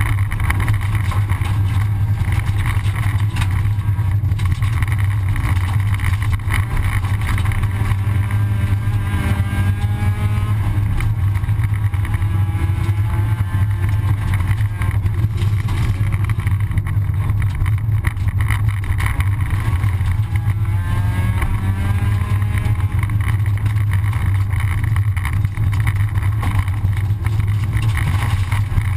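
Rally car running hard, heard from inside the cockpit: a loud, steady low drone of engine and road noise, with the engine note climbing twice as the car accelerates, about a third and two thirds of the way through.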